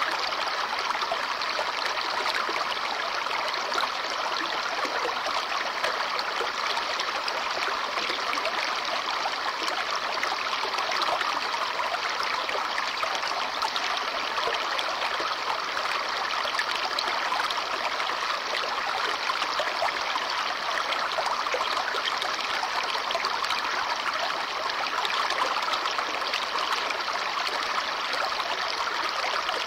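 Babbling brook: water running and trickling over stones in a steady, unbroken splashing.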